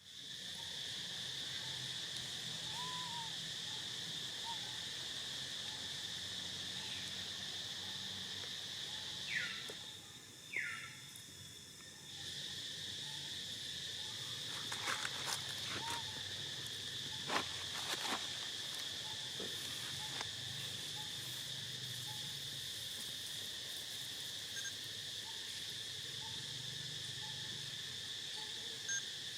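Steady high-pitched drone of insects, which dips for a couple of seconds around ten seconds in while two short falling calls sound. A few sharp clicks follow a few seconds later.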